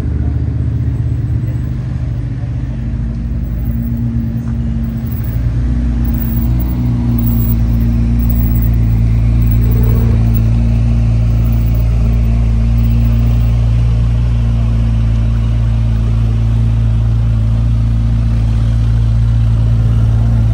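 A car engine running close by: a steady low rumble that grows somewhat louder about seven seconds in.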